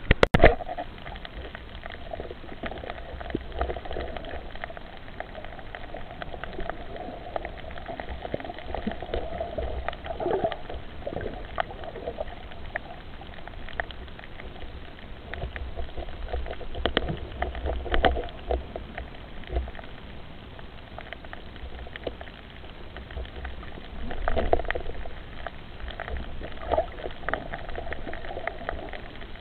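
Underwater sound picked up by a diver's camera in its housing at night: a steady watery noise with many scattered short clicks and crackles, and a sharp knock right at the start.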